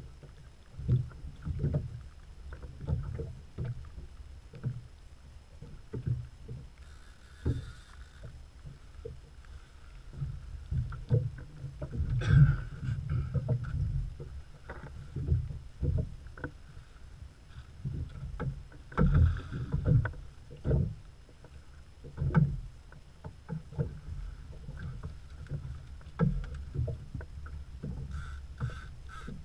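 Small open fishing boat on choppy water: irregular low thumps and knocks of water and gear against the hull, with a louder cluster about twelve seconds in and again near twenty seconds.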